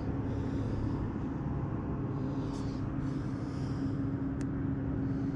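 A boat motor running at a steady hum, with two faint ticks partway through.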